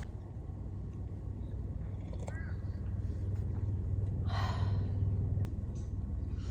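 A person's breathy sigh about four seconds in, over a steady low rumble.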